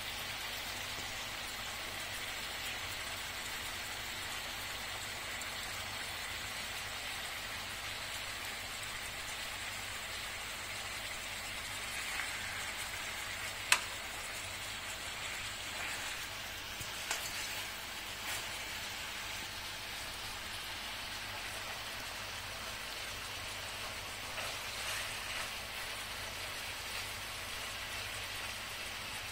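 Food frying in a sac pan: a steady sizzling hiss, with one sharp click about fourteen seconds in and a few fainter knocks around it.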